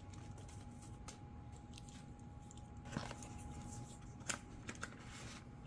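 A few faint clicks and taps as small plastic RC plane parts are handled, over a faint steady hum.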